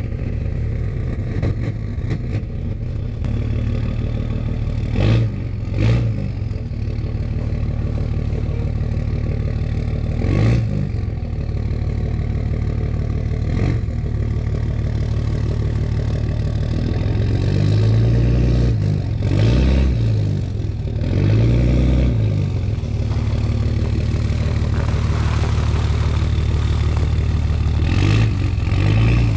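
Cummins diesel pickup engine running under load, revving up and down several times about two-thirds of the way through, with a few clunks in the first half. It is struggling to push a boat trailer in reverse on icy, crusted snow, the rear wheels fighting for grip.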